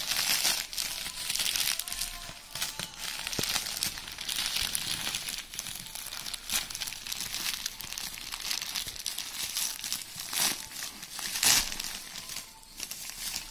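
Plastic courier mailer and bubble wrap crinkling and rustling as hands pull them open around a book, with two sharper, louder swishes near the end.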